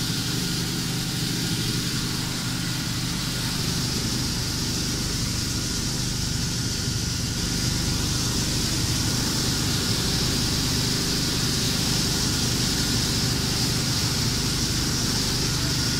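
PE film water-ring pelletizing line running: a steady machine drone with a low hum and a high hiss.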